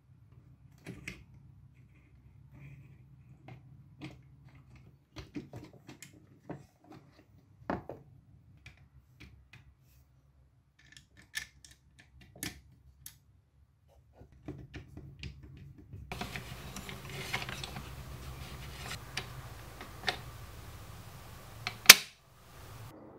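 Plastic parts of a toy sewing machine being handled and fitted together: scattered small clicks and taps, then a busier stretch of rattling and clicking over the last several seconds, ending with one sharp, loud click.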